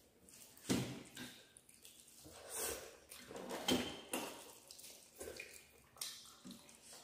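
Close-miked mukbang eating sounds: hands squishing and mixing rice and curry on steel plates, and wet chewing, in irregular bursts. There is a brief light clink of steel dishware about midway.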